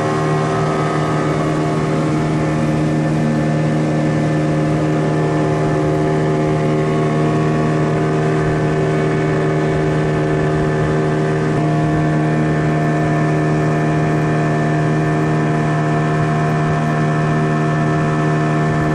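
Outboard motor running steadily at high speed, pushing a boat along, with a slight shift in its pitch about two thirds of the way through.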